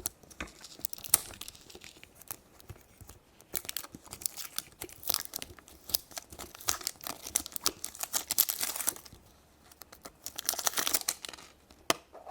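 Crinkly wrapper of a Minnie Mouse surprise egg being torn open and crumpled by hand, in crackling spells with a short pause near the end.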